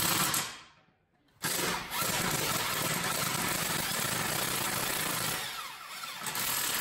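Cordless impact wrench hammering as it tightens the car's subframe bolts, in steady runs. The sound is briefly silent about a second in.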